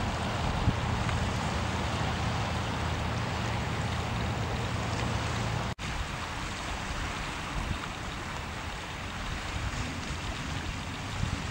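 Steady outdoor ambience of wind and choppy river water, an even hiss with a low rumble in the first half. The sound drops out for an instant about six seconds in.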